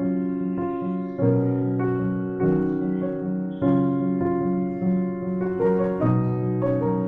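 Background music: a slow, gentle piano melody over held chords, with a new note or chord struck about once a second.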